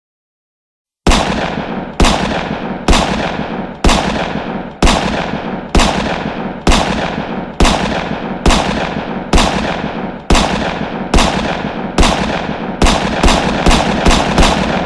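Loud, close gunshots fired one at a time, each blast ringing out in a long echoing tail. They come about once a second, then four in quicker succession near the end.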